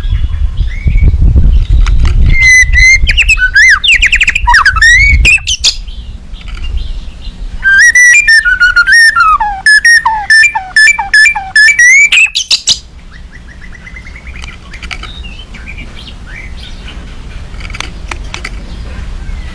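White-rumped shama singing in two loud bouts: whistled phrases with falling notes, shot through with rapid harsh rattling clicks (the 'kretek' and 'tembakan' of a fired-up bird). The second bout, from about eight to thirteen seconds in, is the loudest. After it only faint calls remain, and a low rumble runs under the first half.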